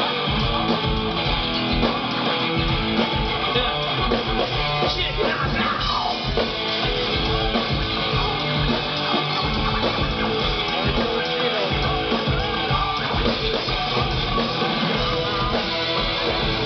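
Rock band playing live: electric guitar strumming over a drum kit, loud and continuous.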